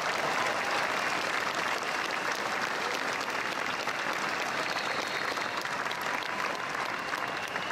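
A large crowd applauding steadily, a dense even clapping that holds at the same level and eases slightly near the end.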